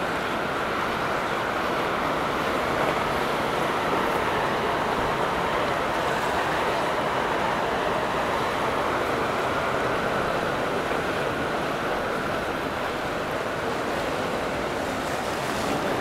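Steady rushing of water and wind noise, even throughout with no distinct engine note.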